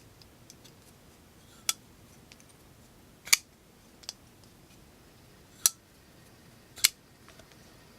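CH 3009 titanium flipper folding knife, on its ceramic ball-bearing pivot, being flicked open and shut by one hand. The blade snaps home with a sharp metallic click four times, with a fainter click between them.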